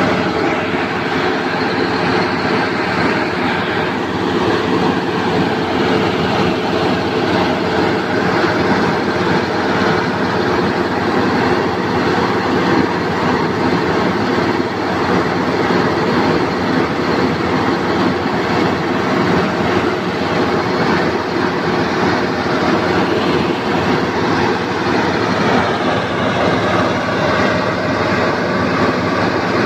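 XCMG QY25K truck crane's diesel engine and hydraulics running steadily while the boom is worked during a test run, a dense even drone with a slight shift in tone near the end.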